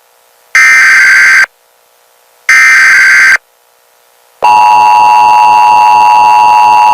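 Emergency Alert System tones. First come two harsh digital data bursts of the SAME header, each about a second long and a second apart. About four and a half seconds in, the steady, loud two-tone EAS attention signal starts and holds.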